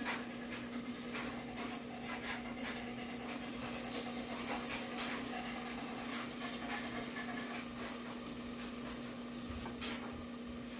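Kielbasa sizzling in a covered electric skillet, a steady hiss with many small crackles and pops, over a steady low hum.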